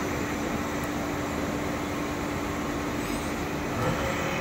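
Running machinery with a steady mechanical hum and a single held tone that cuts off near the end.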